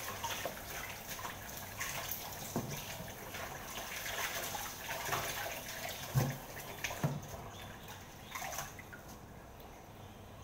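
Kitchen tap running into a stainless-steel pot of watercress as the leaves are rinsed by hand, with water splashing and dripping and a few light knocks. The hiss of the water thins over the last couple of seconds.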